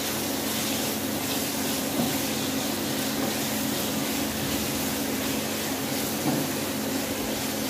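Chicken pieces and ginger-garlic paste sizzling in hot oil in a nonstick wok as they are stirred with a silicone spatula: a steady hiss, with a low steady hum underneath.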